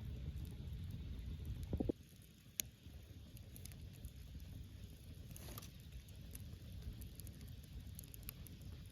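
Wood fire crackling in a Picogrill portable fire pit, with scattered sharp pops. A low rumble underneath stops abruptly about two seconds in, and a louder pop follows shortly after.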